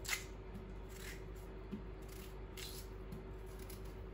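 A few short sharp clicks and a soft knock, about five in all with the first the loudest, as potato pieces go into a Thermomix's stainless steel bowl. A faint steady hum runs underneath.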